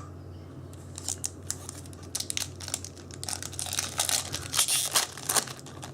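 Foil wrapper of a Yu-Gi-Oh booster pack crinkling and tearing as it is opened, a run of crackles starting about a second in and stopping near the end.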